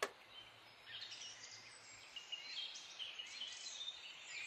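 Faint birds chirping, many short high chirps, with a single sharp click right at the start.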